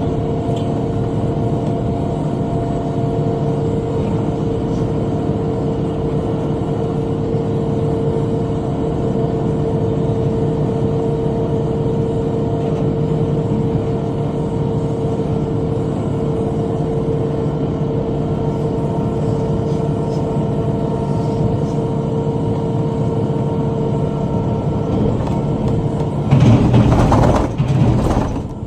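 Tractor engine running steadily under load while driving a rotary cutter (bush hog). Near the end a louder, rough burst lasts about two seconds, then the sound drops away.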